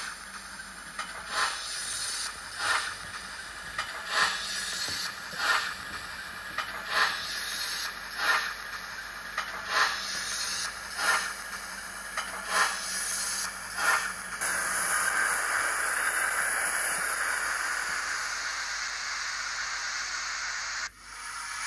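Steam locomotive sound file (Fowler 4F) played by a Hornby HM7000 sound decoder through a small sugar-cube speaker in a TT120 model loco: slow, evenly spaced chuffs about every 1.4 s. From about 14 s the chuffs give way to a steady hiss of steam lasting about 6 s, which cuts off suddenly.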